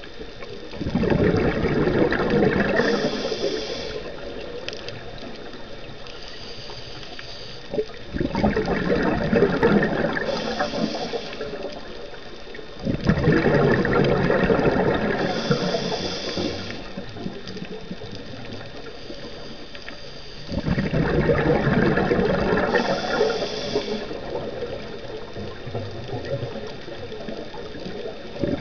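A scuba diver breathing through a regulator underwater: four long rushes of exhaled bubbles, about one every six or seven seconds, with a steadier lower wash of noise between them.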